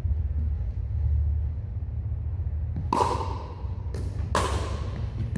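Pickleball rally: three sharp pocks of paddles hitting the plastic ball in the second half, the first the loudest, echoing in the gym hall over a steady low hum.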